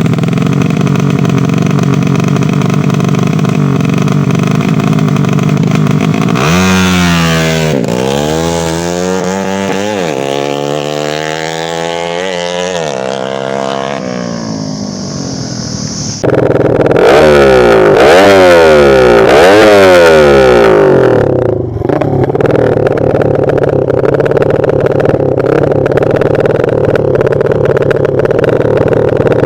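Honda Supra motorcycle's single-cylinder four-stroke engine running through an aftermarket racing exhaust. It idles steadily, is revved up and down repeatedly from about six seconds in and again a little past the middle, then settles back to a steady idle.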